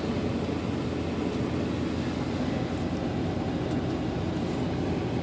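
Steady low rumble of a running vehicle heard inside its cabin, with a few faint short rustles partway through.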